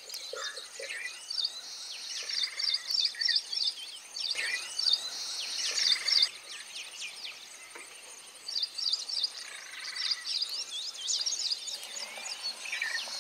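Birds chirping and calling in quick runs of short, repeated high notes, over a thin, steady, high-pitched insect trill.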